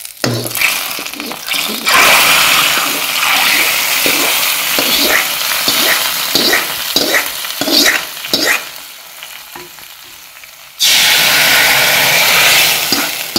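Hot coconut-oil tempering of mustard seeds, dried red chillies and curry leaves sizzling as it is poured into tomato rasam in a clay pot, with a coconut-shell ladle clicking and scraping against the aluminium pan. The sizzle starts loudly about two seconds in, dies down after about eight seconds, and surges again near the end.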